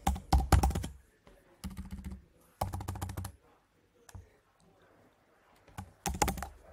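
Typing and deleting text on a computer keyboard: several quick runs of keystrokes with short pauses between them, a quieter stretch of a couple of seconds, then a last run near the end.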